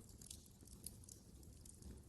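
Faint wood fire crackling, with many small irregular snaps over a low steady rumble of flames.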